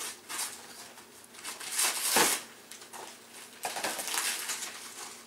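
Wrapping paper and gift packaging rustling and crinkling as it is handled, in several uneven bursts, the loudest about two seconds in.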